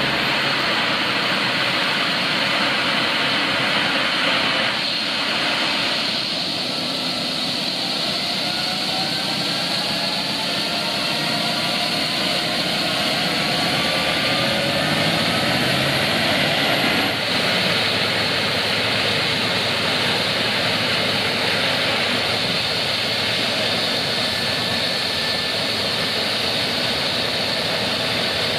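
Police Eurocopter EC135 helicopter running on the ground with its rotor turning: a steady turbine roar and whine. Between about 6 and 16 seconds in, several whining tones rise slowly in pitch.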